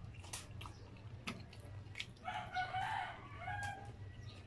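A rooster crows once, a wavering call of about a second and a half starting just past halfway, over sharp clicks of a plastic spoon and fork against the food and its paper box.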